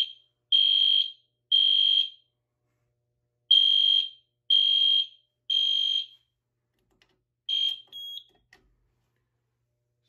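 Edwards ceiling-mount LED horn strobe sounding the three-beep temporal evacuation pattern: a steady high beep three times, then a pause, then three more, because the smoke detector is in alarm. It stops partway into the next group, and one short chirp follows.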